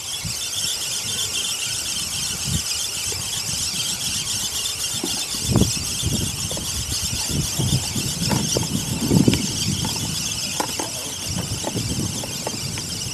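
Spinning reel being cranked steadily to retrieve a 90 g feeder, a continuous high whir of the rotor winding line, with several low thumps of handling, the loudest about nine seconds in.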